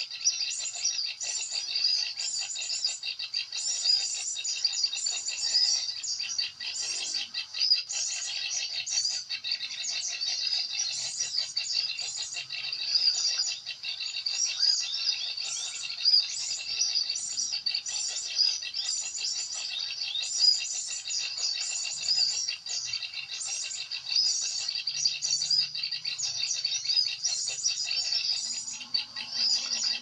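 A dense, continuous chorus of small songbirds chirping and twittering, many short high calls overlapping without a break.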